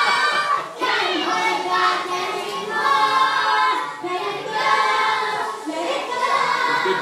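A sing-along audience of children and adults singing a song together, with the song's backing music underneath.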